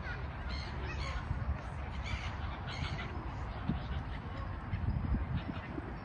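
A feeding flock of Canada geese and gulls calling: geese honking mixed with harsh squawking gull calls, several calls busiest in the first three seconds.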